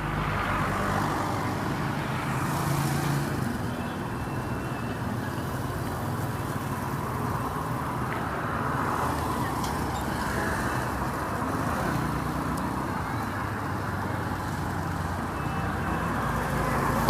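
Street traffic: cars passing one after another with a steady rumble of engines and tyres, swelling and fading as each goes by.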